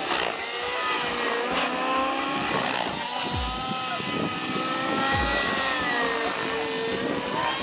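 Align T-Rex 700 RC helicopter flying 3D aerobatics: its motor and rotor whine keeps bending up and down in pitch as the blade pitch and speed change, with two sharp downward swoops about three and five seconds in.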